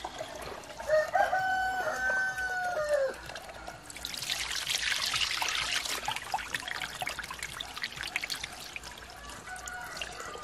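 A rooster crows once, a call of about two seconds that drops in pitch at its end, over water trickling from a hose into a basin. About four seconds in, rinse water from washing sticky rice is poured out of the basin onto concrete: a splashing rush for a few seconds, then the trickle goes on.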